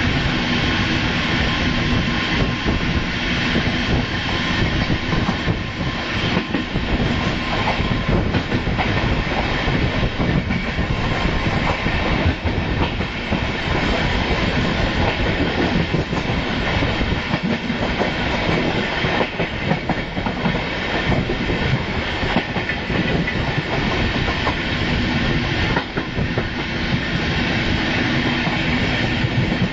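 Intercity passenger train running along the line: steady rolling noise of wheels on rails, with frequent irregular clicks as the wheels pass over the track.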